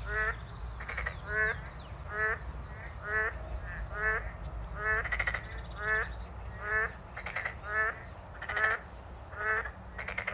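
An animal calling: short calls repeated about once a second, each with a hooked rise and fall in pitch, over a low steady rumble.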